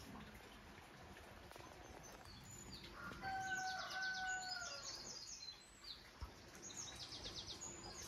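Songbirds singing, with quick trills of high notes about three seconds in and again near the end. A thin held tone lasting over a second comes in with the first trill.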